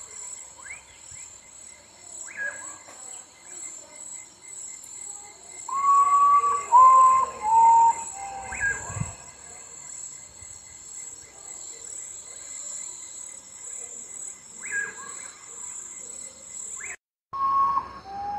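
Common potoo (urutau) singing at night: a mournful series of four clear whistles, each lower than the last, with another whistle near the end. A steady high insect chorus runs underneath and cuts off shortly before the final whistle, with scattered short chirps.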